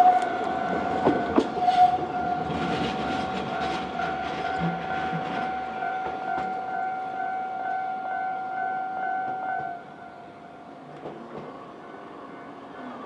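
Japanese level-crossing alarm ringing in a steady, rapidly repeating tone, stopping suddenly about ten seconds in. Under it a city tram rolls over the crossing, with wheel clicks and rumble during the first half.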